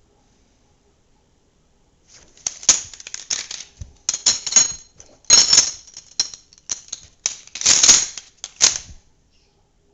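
Glock 17 pistol being field stripped and reassembled by hand: a quick run of metal-on-polymer clicks, clacks and sliding noises as the slide comes off and goes back on. The noises start about two seconds in and run for about seven seconds, with the loudest clacks a little past halfway and near the end.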